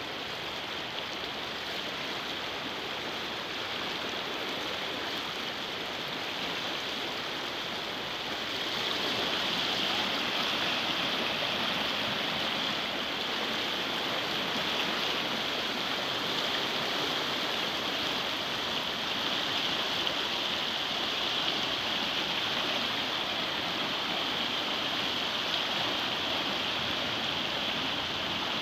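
Swollen, muddy floodwater rushing and churning past in a steady rush, which grows louder about eight seconds in.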